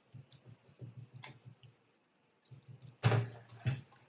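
Soft scrapes and taps of a spatula against a frying pan and a ceramic bowl as a topping is spooned onto noodles. Two louder knocks of kitchenware come about three seconds in.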